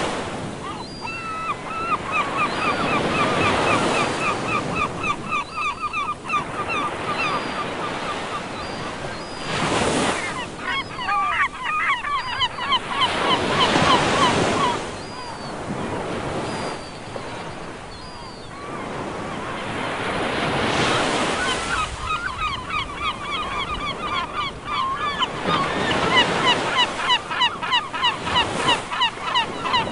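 Ocean waves breaking and washing ashore, swelling every few seconds. Gulls call over them in long runs of quick, repeated notes, with fainter single cries higher up.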